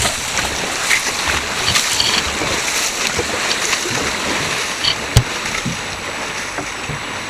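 Dragon boat paddles splashing and churning the water with a steady rushing hiss as the boat moves along, with one sharp knock about five seconds in.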